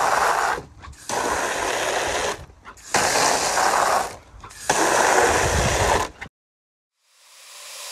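Water from a garden hose spray nozzle hitting a plastic kiddie pool, in four spurts of a second or so each with short breaks between, then stopping about six seconds in.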